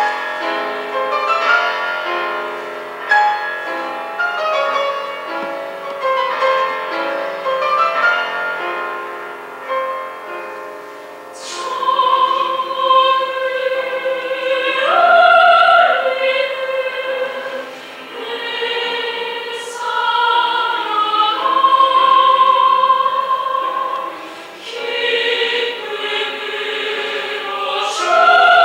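Choir singing a Korean choral song with piano accompaniment. It moves in shorter notes at first, then from about twelve seconds in holds long, louder chords.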